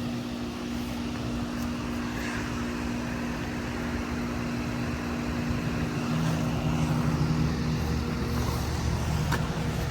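2011 Bryant Preferred Series 2.5-ton heat pump outdoor unit running in heat mode: the steady rush of its Genteq condenser fan over a quiet, even compressor hum. About halfway through, a lower hum joins and the sound grows a little louder.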